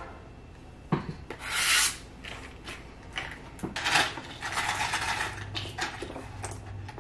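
A clear plastic package being handled and opened: a sharp click about a second in, then irregular crinkling, rustling and rubbing of the plastic.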